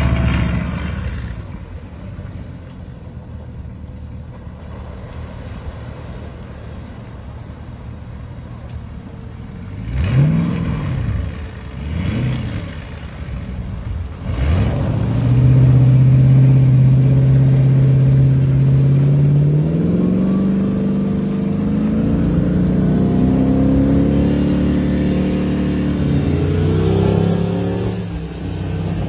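Amphibious car's engine running low and steady, then revved up and down three times. It then holds at high revs, its pitch climbing in steps as the vehicle accelerates across the water.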